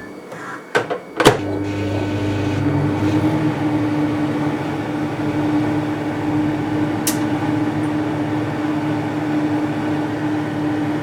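Microwave oven being shut and started: two sharp clicks, then the oven runs with a steady hum from about a second in. A single short high tick sounds about seven seconds in.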